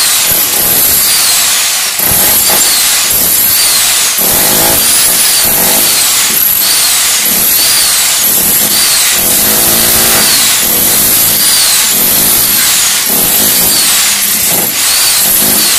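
Electric rotary hammer with a chisel bit hammering continuously into hollow ceramic brick and mortar, chipping out a groove in the wall.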